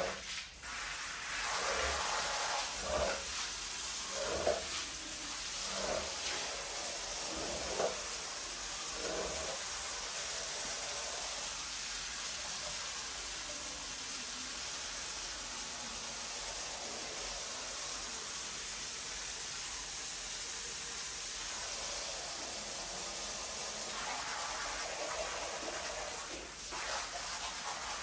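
A rubber squeegee is pushed in strokes across a soaked, soapy rug, swishing foam and water off the pile about every one and a half seconds for the first ten seconds. A steady hiss of spraying or running water continues underneath throughout.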